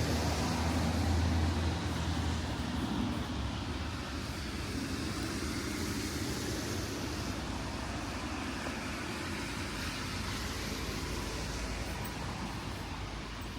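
Traffic on a rain-wet city street: a car's engine hum close by for the first two or three seconds, then a steady hiss of tyres and rain that slowly fades.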